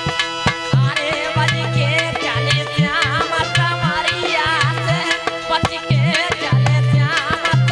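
Bhajan music: a dholak barrel drum beating a steady rhythm with the jingling clicks of a chimta over held harmonium tones, and a wavering sung melody entering about a second in.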